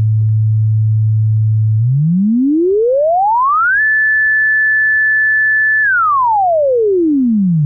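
Synthesized sine-wave tone in a logarithmic frequency sweep. A steady low 110 Hz tone holds for about two seconds, glides up four octaves over about two seconds, holds the high note for about two seconds, then glides back down to 110 Hz near the end. Because the sweep is logarithmic, the pitch change sounds even rather than hurrying through the low notes.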